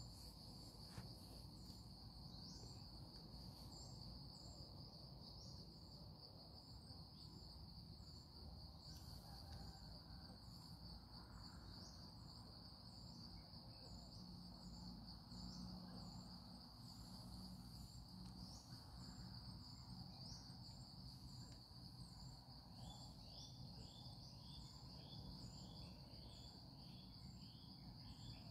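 Faint, steady high-pitched insect trill with a regular ticking above it, and a quick series of short chirps about four fifths of the way in.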